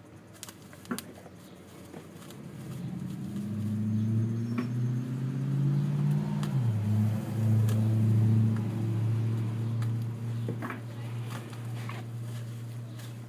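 An engine running nearby, building up in level over the first few seconds, shifting pitch once about six and a half seconds in, then holding a steady hum. A few light clicks come near the start.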